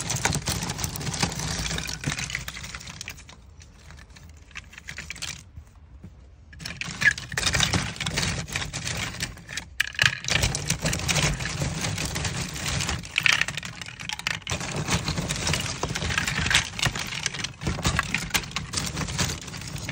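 Dry agarwood chips clattering and rattling against each other as a hand stirs and scoops through a heap of them, a dense run of light clicks. It drops away for a few seconds about a quarter of the way through, then picks up again.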